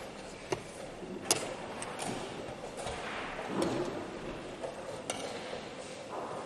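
Sharp clicks of wooden chess pieces being set down on a board and chess clock buttons being pressed in a fast blitz game, about five in all, the loudest about a second in, over steady room noise.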